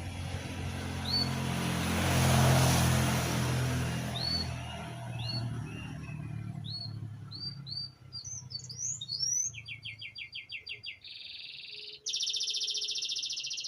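Small kingfisher (tengkek urang) calling: a string of short, sharp, upward-hooked chirps, then from about ten seconds in fast rattling trills and a long, high buzzy trill. A low rumble runs under the first few seconds, loudest about two seconds in.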